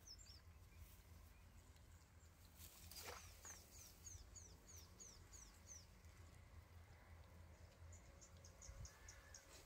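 Faint outdoor quiet with a small bird calling: a run of about ten quick, high, downward-slurred chirps starting about three seconds in, then a second, faster run of short chirps near the end. A soft knock just before the first run.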